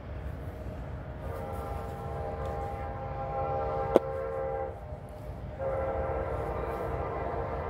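Diesel freight locomotive's multi-chime air horn sounding two long blasts over the low rumble of the approaching train. The first starts about a second in and stops near five seconds; the second starts about a second later and is still going at the end. A single sharp click about four seconds in.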